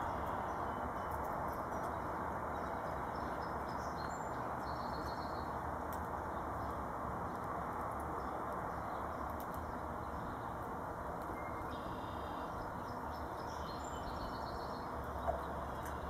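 Steady outdoor background noise with faint, distant songbird chirps, twice. A single sharp click comes near the end.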